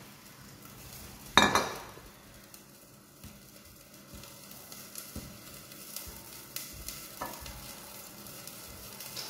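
A brass bowl set down on the kitchen counter with a loud clank and a short ring about a second and a half in. Laddoos are then lifted from a steel plate and placed in the bowl, making a few light taps and clinks of metal over a faint steady hiss.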